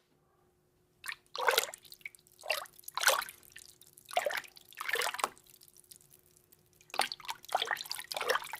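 Water being splashed and stirred in a bucket, a series of separate splashes and plops with short pauses between them, performed as foley for characters swimming underwater.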